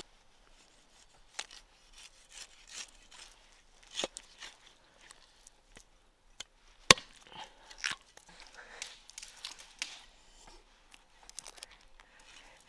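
Food preparation on a wooden chopping board: scattered, irregular knocks with rubbing and rustling between them, and one sharp knock about seven seconds in.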